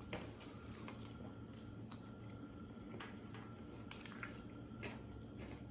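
A person quietly chewing a mouthful of crispy chicken sandwich, with soft irregular squishes and clicks over a low steady room hum.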